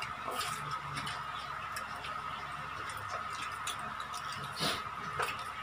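Faint scattered clicks and small taps of hands handling food at the table, over a steady high-pitched hum, with a slightly louder click or two near the end.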